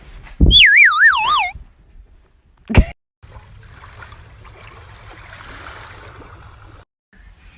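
Cartoon-style sound effects: a low thump, then a whistle-like tone that wobbles as it falls in pitch over about a second. A sharp, loud hit comes about two and a half seconds later, followed by faint steady background noise.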